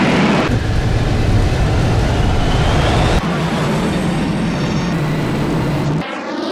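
Aero L-39 Albatros jet at takeoff power: a loud, steady jet engine sound with heavy low rumble during the takeoff roll and lift-off. The sound changes abruptly twice along the way. Near the end it gives way to a jet passing by, its pitch sweeping downward.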